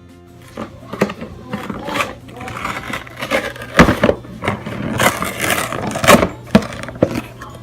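Objects being handled and set down: irregular knocks, clicks, scrapes and rustles, with a few louder clatters a little past the middle, over a steady low hum.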